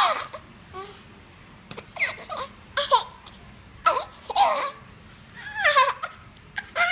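A 10-month-old baby making a run of short vocal bursts, roughly one a second, each a brief squealing cry that slides down in pitch. Several open with a harsh, cough-like catch, typical of a baby's playful fake coughing.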